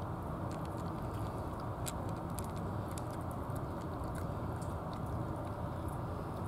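A cat eating dry kibble from a plastic dish: scattered small crisp crunches as it chews. Under them runs a steady low rumble.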